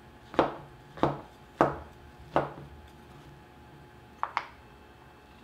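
A pie server cutting down through the crisp crumb topping and crust of a baked apple crumb pie: four short crunches about two thirds of a second apart, then two quick light clicks about four seconds in.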